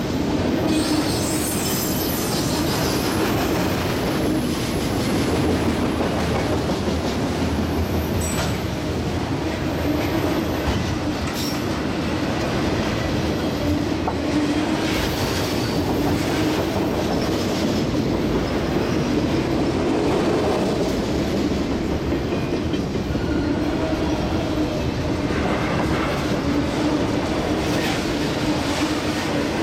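Autorack freight cars rolling past close by: steady rumble of steel wheels on the rails, with a thin high wheel squeal that comes and goes, a few seconds in and again around ten seconds in.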